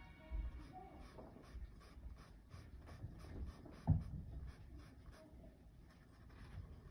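Paintbrush scratching on textured canvas in short repeated strokes, about three a second, as oil paint is worked onto a petal. A single dull knock about four seconds in.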